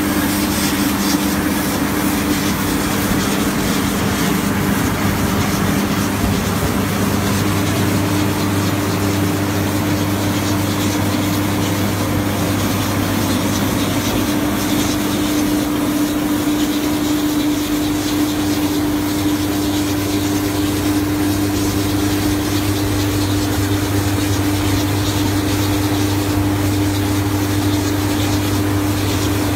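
SnPC BMM 300 mobile brick-making machine running, a loud, steady engine hum that does not change in pitch.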